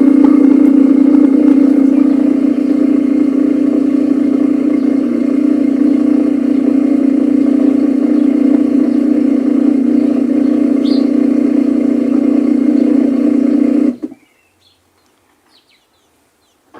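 Samsung top-load washing machine's pump running during its calibration test, a loud steady hum that cuts off suddenly about fourteen seconds in, leaving near silence.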